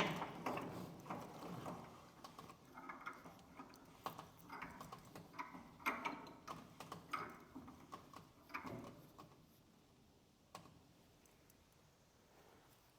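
Wheel clamps on a motorcycle lift being tightened down, giving irregular metal clicks and short ratcheting rasps that stop about nine seconds in, with one last click a little later.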